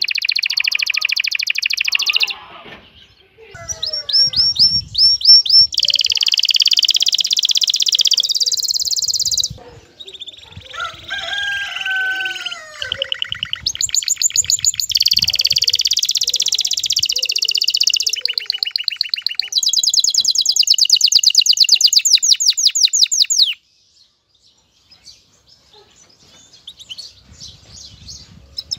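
Domestic canary singing a courtship song, typical of a male in breeding condition. It comes in phrases of fast high trills and rapid repeated notes, each a few seconds long, with the rhythm changing from phrase to phrase and short breaks between them. Near the end the song drops to a few soft chirps.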